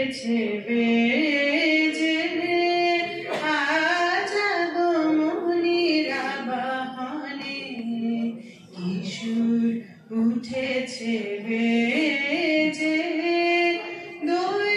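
A woman singing solo into a microphone, a slow melody with long held notes that glide between pitches.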